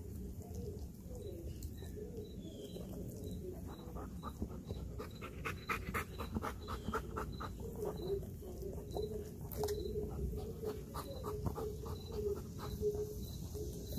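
Belgian Malinois panting hard in quick, even breaths, worn out after a workout.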